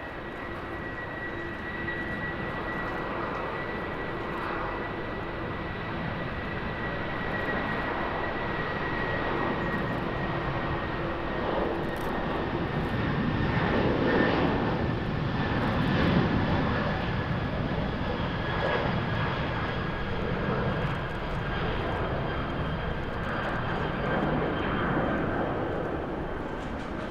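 Airbus A330-300 twin-jet airliner at takeoff thrust, accelerating down the runway and climbing out. Steady jet engine noise with a high whine that slides slightly lower, loudest about halfway through as the aircraft passes.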